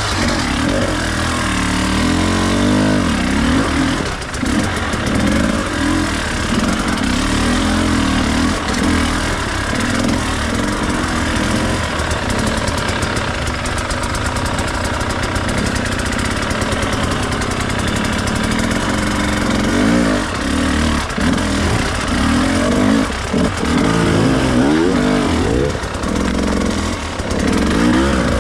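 Enduro dirt bike engine running under load as it is ridden off-road, the revs rising and falling again and again, most often in the last several seconds.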